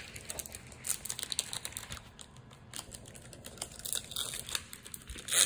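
Foil Pokémon booster pack wrapper crinkling as it is opened, scattered small crackles with a louder rustle near the end.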